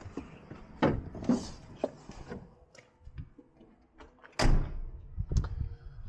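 Truck cab door opened with a click, a few knocks and scuffs of climbing out, then the door slamming shut about four and a half seconds in, the loudest sound.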